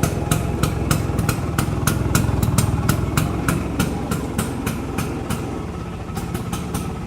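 The single-cylinder two-stroke engine of a 1965 Vespa Super 150 scooter idling, a low rumble with sharp ticks at about three to four a second. It grows fainter over the last couple of seconds.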